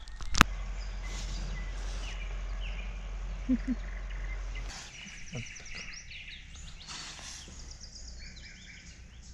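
Small songbirds chirping and trilling in repeated short phrases, clearest in the second half. A sharp click sounds about half a second in, over a steady low rumble that stops about halfway through.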